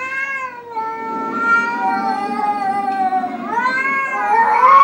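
Cat yowling in a tense face-off with another cat: one long, slowly falling call, then a second that rises and falls and is loudest near the end.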